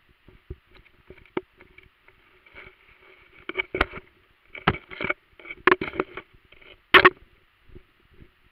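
Muffled underwater knocks, thuds and water sloshing picked up by a camera submerged in a pond as it is jostled, over a faint steady hiss. The knocks come thickest in the middle, the loudest about seven seconds in.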